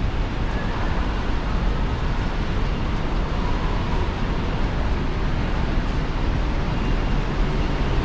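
Steady outdoor city background noise: a constant rushing hiss over a deep rumble, with no single event standing out.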